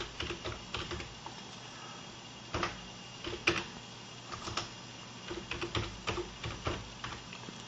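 Computer keyboard keystrokes as a username and password are typed: a quick run of keys at first, then slower, spaced-out single keys.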